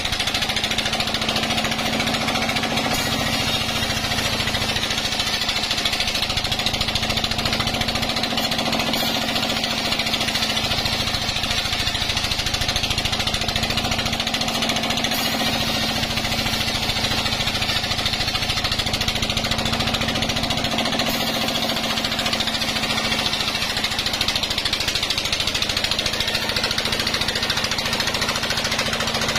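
Vertical band saw ripping a log lengthwise: a steady machine hum under the continuous high rushing noise of the blade cutting wood.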